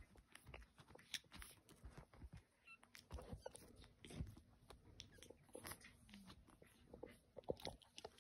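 Brussels Griffon puppies play-biting and mouthing each other: faint, irregular little clicks, snaps and scuffles.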